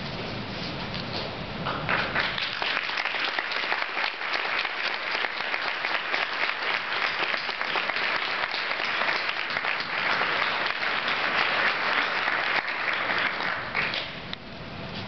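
Audience applauding: the clapping swells about two seconds in, holds steady, and thins out near the end.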